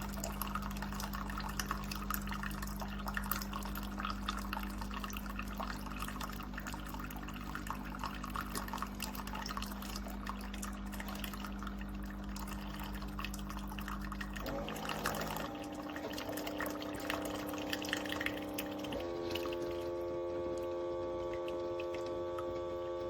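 Cuisinart SS-15P1 coffee maker brewing: coffee pouring and dripping into the cup over a steady hum. The hum steps up in pitch a little past halfway and again near the end.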